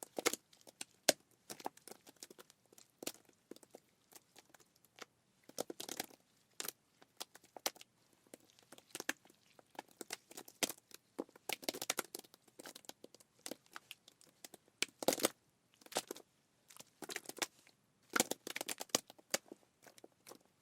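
Irregular crackling and crinkling: scattered sharp clicks and short tearing, crunchy bursts, with no voice.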